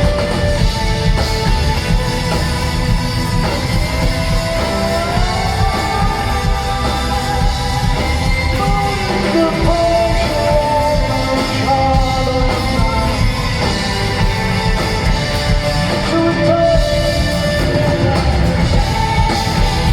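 Live rock band music at a concert: the full band playing loudly, with a voice singing long, gliding notes over it.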